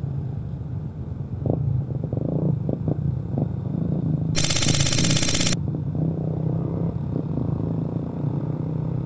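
Honda ADV150 scooter's single-cylinder engine running steadily while riding, with a few light knocks. About halfway through, a horn sounds loudly for about a second.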